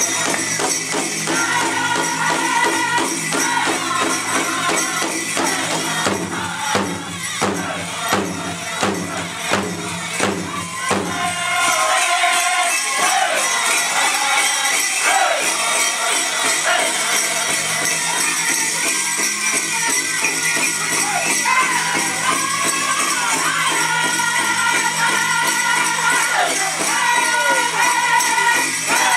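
Powwow drum group singing over a steady beat on a big drum, with the dancers' bells jingling. The drumbeats are most prominent in the first half, and the singing stands out more after it.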